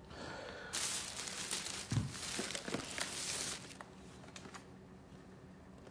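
Close rustling and crinkling handling noise starting just under a second in and lasting about three seconds, with a few clicks and a soft thump partway through.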